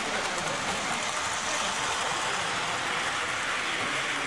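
Hornby tinplate model train running on tinplate track: the wheels make a steady metallic rattle on the rails.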